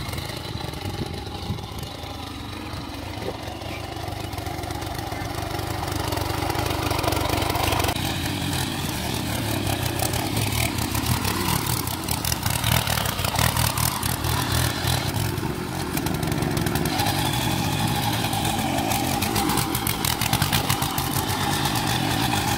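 Small walk-behind petrol power tiller running steadily, its rotary tines churning through wet paddy mud.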